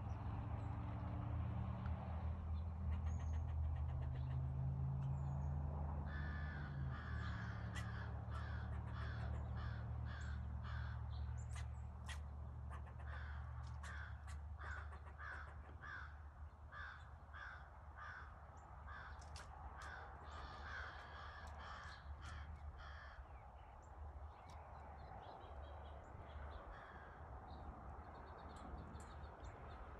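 Crows cawing over and over, about two caws a second for most of the stretch, then thinning out near the end. A low steady hum runs underneath, strongest in the first several seconds.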